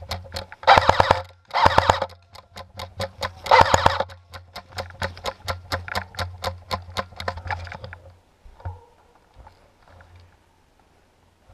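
Airsoft guns firing: a fast, even run of sharp shots with three louder rapid bursts about one, two and three and a half seconds in. The firing stops about eight seconds in, leaving only faint scattered sounds.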